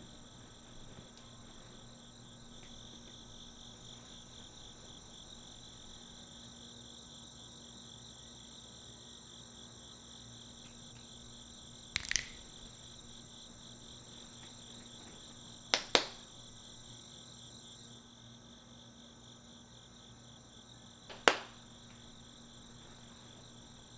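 Steady night-time chirping of crickets, broken by three sharp knocks: one about halfway through, a quick double a few seconds later, and one near the end.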